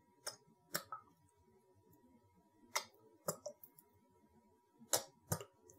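Plastic squeeze bottle of habanero wing sauce squirting onto chicken wings, in about six short, sharp slurping squirts that come roughly in pairs.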